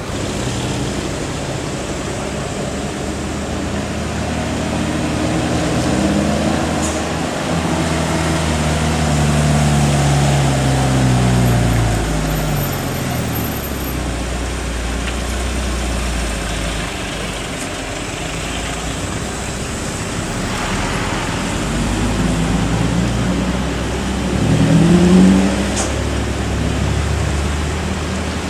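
Truck and car engines on a mountain road, a steady low rumble. In the first half one engine's pitch falls slowly over several seconds; near the end an engine revs up briefly and sharply, the loudest moment.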